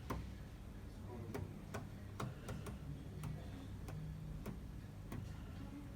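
Sharp clicks from an AEG washing machine's control panel as its settings are worked, about ten at uneven intervals.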